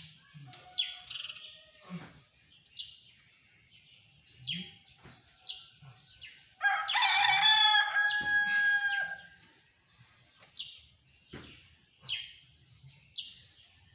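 A rooster crows once, loud and drawn out for about two and a half seconds, starting about seven seconds in. Short chirps from small birds come and go throughout.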